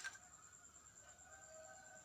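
Near silence: faint room tone with a steady high-pitched whine and faint tones in the background.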